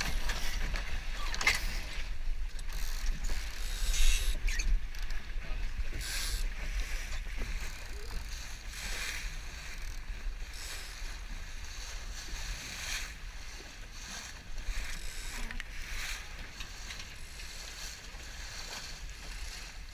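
Choppy water splashing irregularly against the hull of a small sloop under sail, over a steady low rumble of wind on the microphone. The splashes are strongest in the first few seconds.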